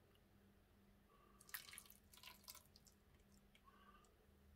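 Faint drips and small splashes of water poured from a plastic kettle onto crumbled compressed food-bar powder in a steel tray, mostly in the middle and again near the end. The powder is being wetted to make a porridge.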